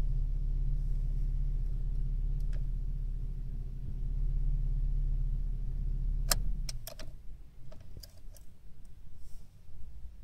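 Chevrolet Cruze engine idling with a steady low hum, heard from inside the cabin, then switched off about six and a half seconds in. A few sharp clicks and a light jingle of keys at the ignition follow.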